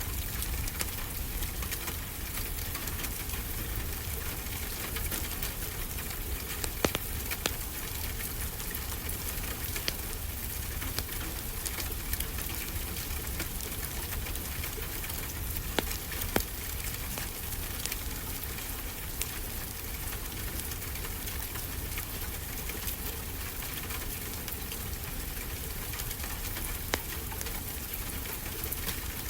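Steady rain mixed with a wood fire crackling, with a few sharp pops now and then.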